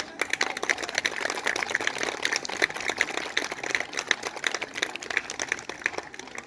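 Audience applauding, many hands clapping densely and irregularly, thinning out near the end.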